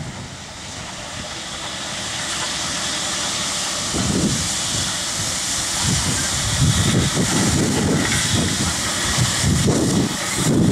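Steam tank locomotive approaching with a goods train, its steam hissing steadily and growing slowly louder, with irregular low rumbles from about four seconds in.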